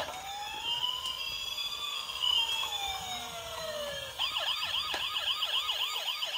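Electronic siren of a small battery-powered toy police car: a slow wail gliding up and down for about four seconds, then switching to a fast yelp of about three rising chirps a second.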